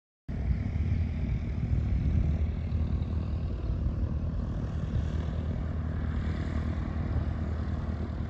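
Single-engine propeller light aircraft taxiing: its piston engine and propeller running at low taxi power, a steady low throbbing rumble that starts abruptly just after the beginning.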